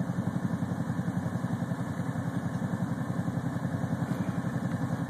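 Off-road vehicle engine idling steadily, with an even, fast low throb.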